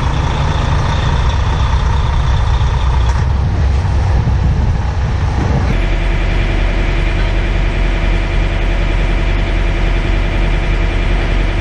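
Semi truck's diesel engine running steadily at low speed as the rig is backed. About five and a half seconds in, its note changes to a steadier, evenly pitched hum.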